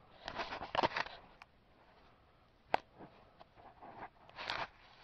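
A half-inch drive ratchet clicking in short bursts as it works an 18 mm wheel-bearing bolt loose, with one sharp metallic click near the middle.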